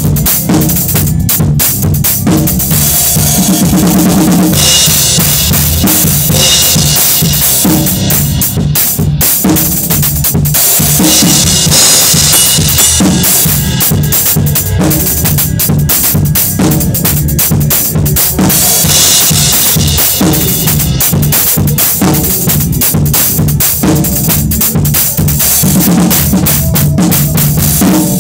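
Drum kit played hard at close range in a steady groove: bass drum, snare and cymbals, with the cymbals washing continuously over the beat.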